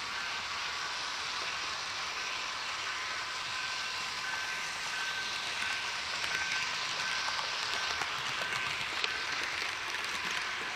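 Steady rolling hiss of an HO-scale model coal train's wheels on the rails, heard from a camera riding on the train, with a faint high whine that comes and goes.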